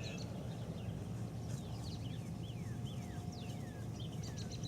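Small birds calling: a string of short chirps that each slide downward in pitch, then a quick run of rapid high ticking notes near the end, over a steady low background rumble.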